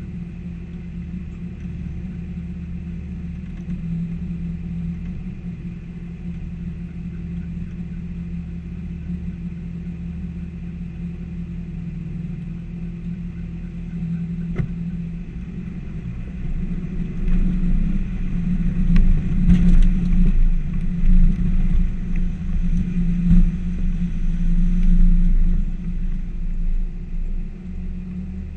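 P38 Range Rover's engine running slowly, heard from inside the cab. From a little past halfway it grows louder and rougher, with uneven rumbling and knocks as the vehicle drives through the river ford.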